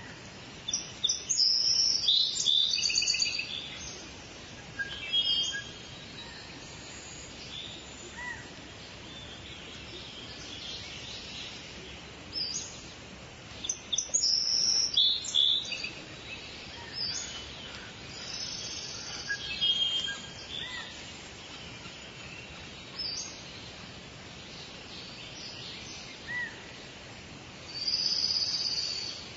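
Birds chirping and calling in short high-pitched phrases that come and go, over a steady background hiss.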